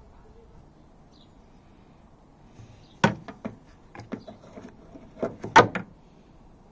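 A quick series of sharp clicks and knocks starting about three seconds in, from work on the fittings of a tailgate gas strut; the loudest knock comes near the end.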